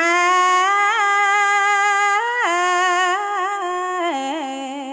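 Khmer smot, Buddhist chanted verse sung by a woman: a single voice holding long notes with wavering ornaments, stepping down in pitch about halfway through and again near the end.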